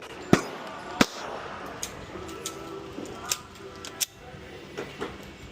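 A string of single 9mm pistol shots, roughly one every second or less, some sharp and loud and others fainter.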